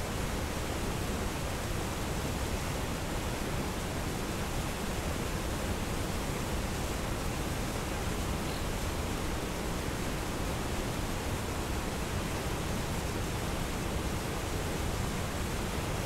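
Waterfall with water rushing steadily over an ice-covered face: a dense, even rush of falling water.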